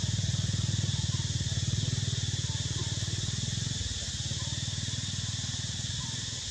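Steady high insect drone under a low, fast-pulsing mechanical hum that drops in level about four seconds in.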